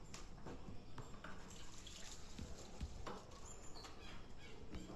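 Tap water running and splashing into a steel bowl of grated potato as the potato is rinsed to wash out its starch. A few light clinks and knocks of the bowl are heard.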